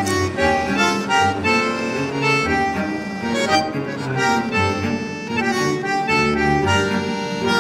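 Background music: an instrumental tune of quick notes over a bass line.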